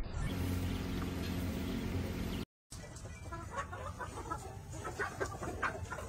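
A steady low hum for about two and a half seconds that cuts off abruptly. Then Kadaknath chickens clucking in short, scattered calls.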